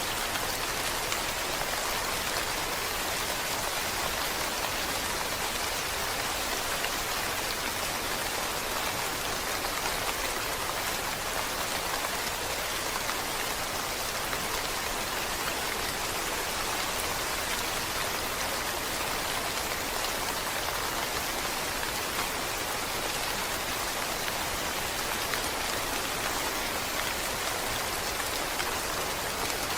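Steady rain falling, an even wash of drops at constant strength with no pauses or thunder.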